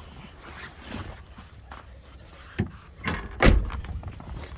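Minivan door being worked: a sharp click about two and a half seconds in, then a heavy, deep thump about a second later.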